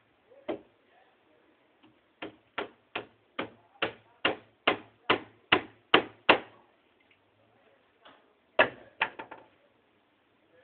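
Hammer blows on wooden formwork: a single blow, then a steady run of about eleven blows at roughly two and a half a second, growing louder, then a few quicker blows near the end.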